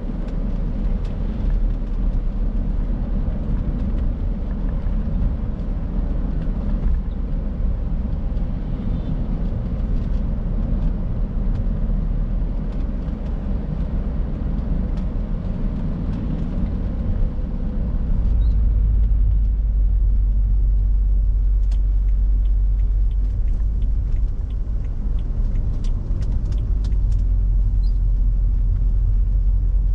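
Peugeot 406 driving along a road: a steady rumble of engine and tyres, which grows louder and deeper about eighteen seconds in.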